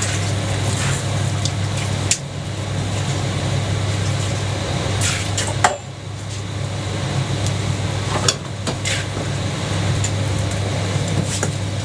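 Jianbing crepe cooking on a hot griddle: a steady sizzle broken by several short scrapes and knocks of the spatula, over a constant low hum.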